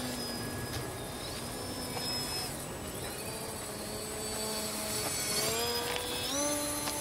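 Radio-controlled Yak-55M model aerobatic plane's motor and propeller running in flight as one steady, buzzing tone. The pitch dips briefly about a second in, then rises in steps near the end as the plane passes overhead.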